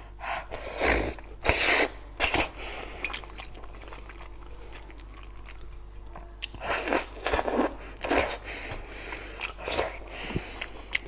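A person chewing and biting food close to the microphone: short wet, crunchy bursts, several in the first couple of seconds and another run past the middle.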